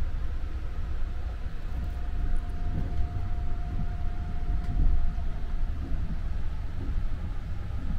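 Sunrise Express sleeper train running, heard from inside the compartment: a steady low rumble, with a faint steady whine for a few seconds in the middle.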